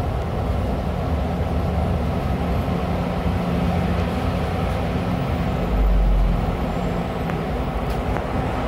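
Neobus Mega BRT bus running along the road, a steady low engine drone and road noise heard from inside the passenger cabin, with a brief low thump about six seconds in.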